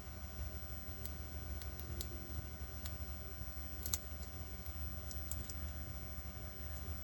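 Faint, scattered small metallic clicks of a lock pick and tension wrench working the pins of a Truguard 40mm padlock, the sharpest about four seconds in, over a steady low hum.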